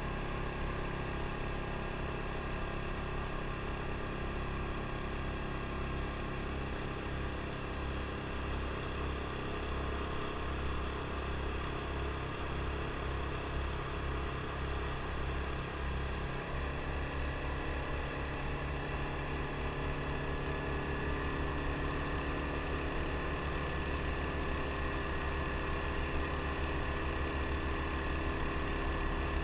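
Mokai motorized kayak engine running steadily under way, with a small change in its note about halfway through.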